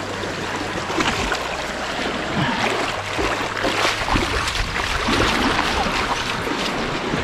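Shallow seawater splashing and sloshing as a person wades beside an inflatable boat, with small waves lapping against it; the splashing is steady, with many small irregular splashes.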